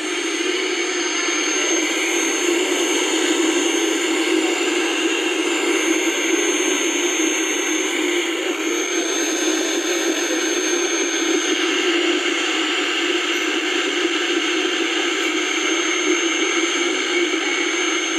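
Vacuum tube radio (V.A.L. International R601P) putting out a steady rushing static hiss through its speaker, with a thin high whine above it.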